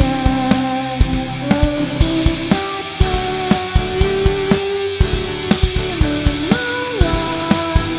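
Pop song music: a drum kit keeps a steady beat under a held lead melody whose long notes slide from one pitch to the next.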